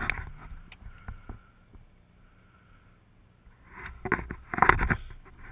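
Drive chain held together by a makeshift bent-wire link, turning round its sprocket as the bike is pushed; a burst of clicking and knocking comes about four seconds in.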